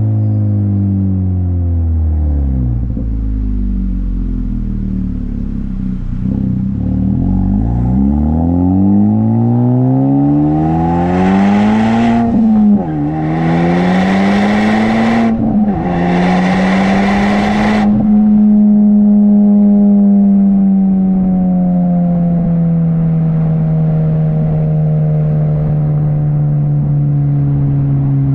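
2020 Honda Civic Type R FK8's turbocharged 2.0-litre four-cylinder running with the muffler and resonator deleted. The revs fall off at first, then the car accelerates hard through two upshifts, the pitch climbing and dropping back at each shift, with a loud rasp during the pulls. After that it settles into a cruise, the pitch slowly sinking.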